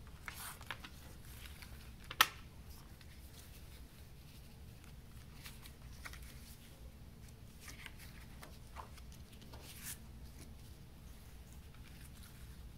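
Handling of a plastic CD jewel case and its paper booklet: one sharp plastic click about two seconds in, then light paper rustling and a few soft clicks as the booklet is unfolded and laid down.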